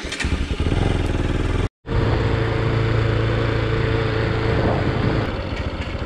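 Motorbike engine running steadily while riding, with road and wind noise; the sound drops out briefly once just before two seconds in.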